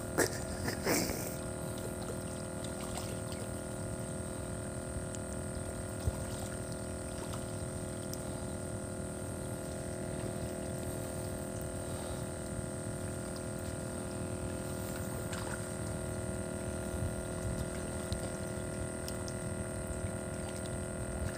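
Steady hum with several constant tones over an even wash of water-like noise, with a short louder sound in the first second.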